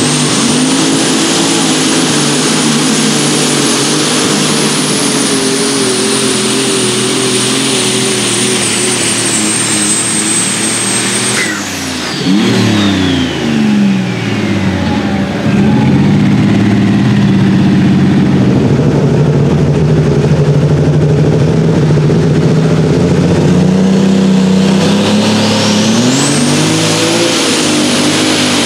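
Light super stock turbocharged diesel pulling tractor running flat out under load, with a high turbo whistle. About twelve seconds in the engine drops off and the whistle winds down in a falling glide. Another pulling tractor's engine then runs steadily and spools up again near the end, its turbo whistle rising.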